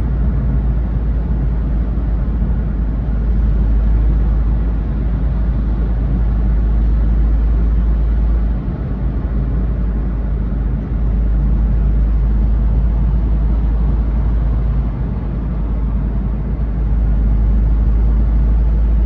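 Smart Fortwo running on the move: a steady, loud low rumble with a humming drone and noise over it, without any clear rise or fall in pitch.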